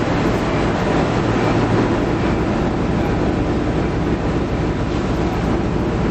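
Star Ferry under way, its engine running steadily: a constant low rumble with an even rushing noise over it.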